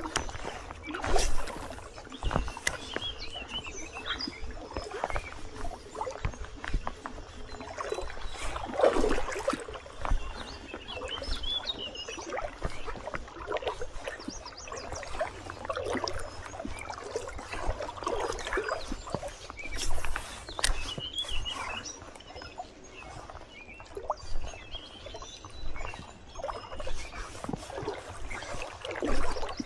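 River water sloshing and splashing around a wading angler's legs in an irregular rhythm, with a couple of louder splashes about a second in and near the middle. Birds chirp faintly in the background.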